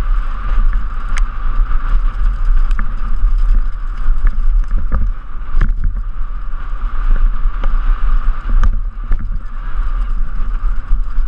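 Wind buffeting a helmet-mounted camera microphone on a fast downhill mountain-bike descent, a heavy steady rumble, with frequent sharp clicks and knocks from the bike rattling over rough dirt.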